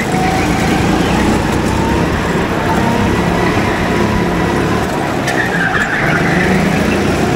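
Go-kart engines running steadily on a kart track, with a brief rising-and-falling squeal about five and a half seconds in.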